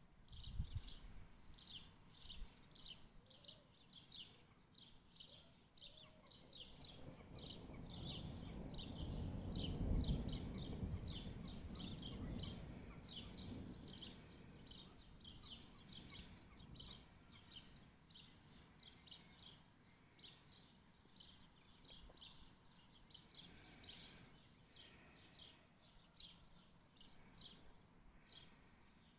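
Distant thunder: a low rumble that swells about six seconds in, peaks near the ten-second mark and fades away over several seconds. Underneath, a small bird chirps over and over, several short chirps a second throughout.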